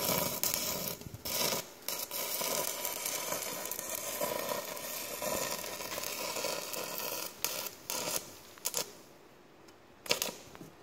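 Welding material being laid into a worn, leaking spot on a well-drilling rig's mud pump casing: a steady hissing crackle for about seven seconds, broken briefly twice. Then a few short scrapes as the fresh weld is scrubbed with a wire brush.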